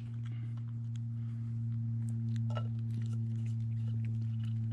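A steady low hum, with a fainter higher tone above it, runs throughout. Over it come a few faint clicks and a soft gulp about two and a half seconds in as beer is sipped.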